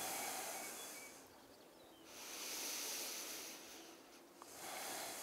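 A person breathing slowly and audibly close to the microphone: three long, soft, hissing breaths.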